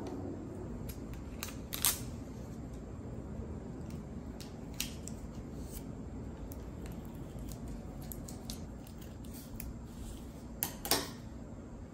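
Scissors snipping through corrugated cardboard, two sharp snips close together near the end, with light clicks and taps of cardboard pieces being handled and a single sharp click about two seconds in, over a steady low background hum.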